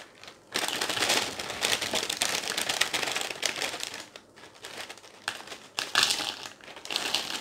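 Clear plastic inner bag of Froot Loops cereal crinkling and rustling as the cereal rings are shaken out into a bowl. The crinkling is dense for about three seconds, then thins to scattered crinkles and clicks.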